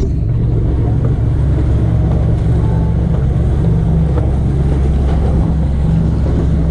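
Lifeboat tender's engine running with a steady low hum, with wind on the microphone and the wash of water alongside.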